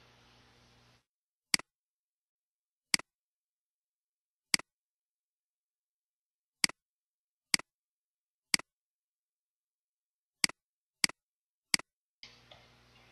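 About nine sharp, isolated clicks of a computer keyboard and mouse, spaced unevenly over about ten seconds, with dead silence between them.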